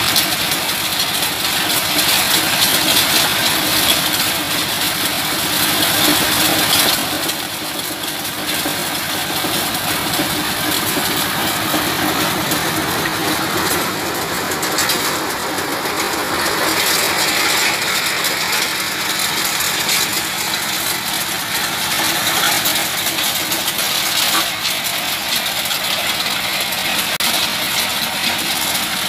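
Diesel engine driving an organic-fertilizer grinding machine, running steadily under load with a continuous rushing grinding noise.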